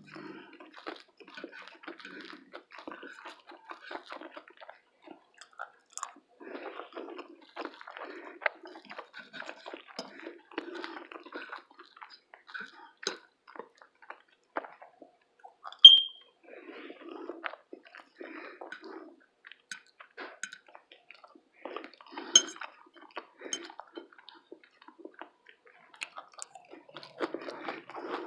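A person chewing breakfast food, a dense run of small wet mouth clicks in bouts with short pauses between them. About halfway through comes a single short high-pitched ping, the loudest sound in the stretch.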